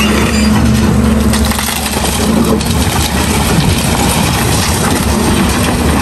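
JCB backhoe loader's diesel engine running steadily under load, with continuous crunching and scraping as the machine works through rubble.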